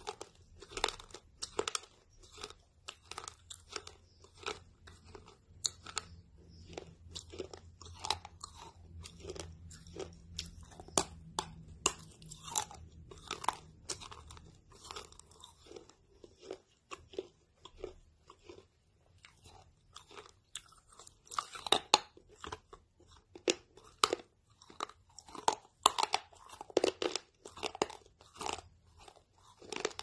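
Close-miked crunching and chewing of a crisp snack chip: a dense run of sharp crackles as it is bitten and chewed, with louder crunches now and then.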